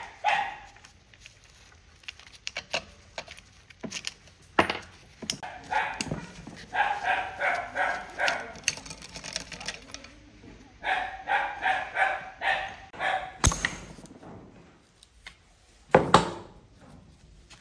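A dog barking in two runs of quick, repeated barks, about three a second, with a few sharp knocks in between and a loud knock near the end.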